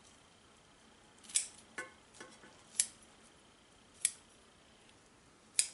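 F. Dick forged stainless steel kitchen shears snipping fat from cooked chicken skin: four sharp snips about a second and a half apart, with a lighter click just after the first.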